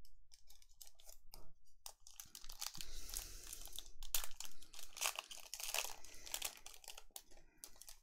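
Wrapper of a Panini Illusions trading-card pack being torn open and crinkled by hand: a few light clicks, then from about two seconds in, several seconds of dense crackling and tearing.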